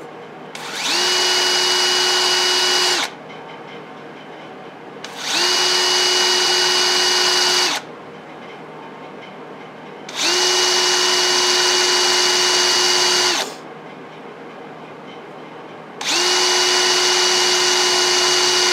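Rotary tool with a small abrasive pad spinning up with a steady high whine, pressed to a metal gauge panel for about three seconds and then run down. It does this four times, each burst swirling one spot of an engine-turned pattern.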